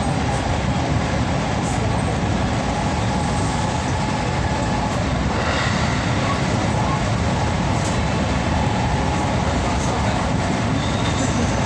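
A JR West 223 series electric train running at speed, heard from inside the leading car: a steady rumble of wheels on rail with a faint steady whine above it.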